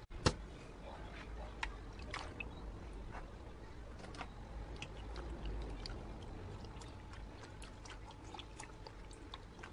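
Faint dripping and small splashes of water as a white cotton shirt is pressed down to soak in a plastic basin of hot water, with one sharp knock just after the start.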